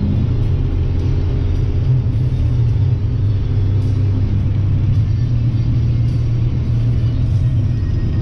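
Steady low engine and road rumble of a moving vehicle.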